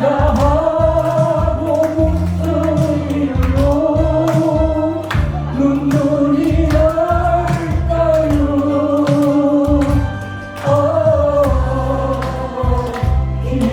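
Sustained, gliding sung melody over a backing accompaniment with a steady beat.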